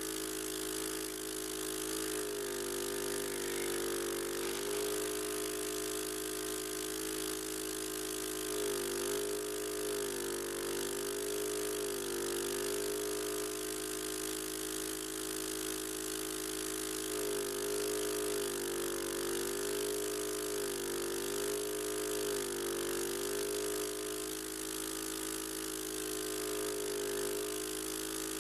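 Medical suction machine's pump motor running steadily during nasal suctioning, its hum wavering and shifting in pitch several times for a few seconds at a stretch.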